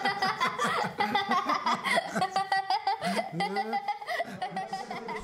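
A man and a girl laughing and giggling together in repeated short bursts, which fade toward the end.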